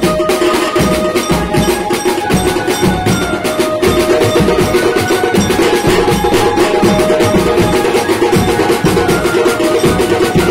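Electronic keyboard played live: a pitched melody line over a fast, steady percussion beat.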